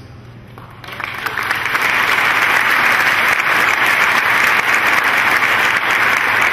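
Audience applauding. The clapping starts about a second in, swells quickly, and holds steady and loud.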